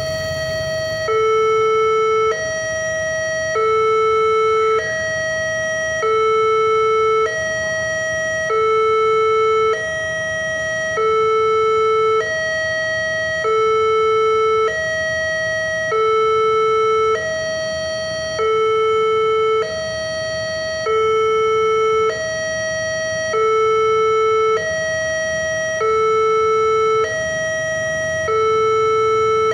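Railway level-crossing warning alarm sounding: an electronic two-tone signal alternating between a higher and a lower tone about once a second, the lower tone louder. It is the warning that a train is approaching the crossing.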